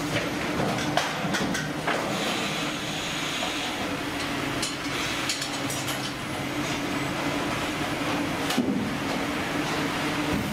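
Fish-processing conveyor machinery running with a steady hum, with irregular clicks and knocks of metal parts throughout.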